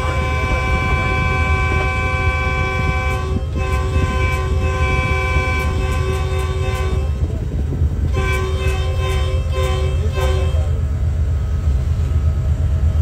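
Locomotive air horn sounding a multi-note chord: one long blast ending about 3.5 seconds in, a second held until about 7 seconds, then several shorter blasts until about 10.5 seconds. It is a warning to the animals running on the track ahead, heard over the locomotive's steady low rumble inside the cab.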